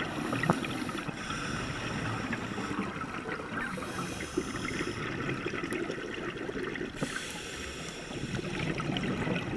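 Underwater sound through a GoPro housing: a scuba diver's regulator breathing, with exhaust bubbles gurgling and short hissing breaths that come every few seconds. Faint crackling ticks run underneath.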